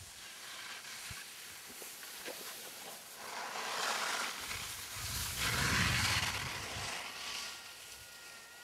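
A rushing outdoor hiss that swells twice. The second, louder swell, about five to seven seconds in, carries a low wind rumble on the microphone.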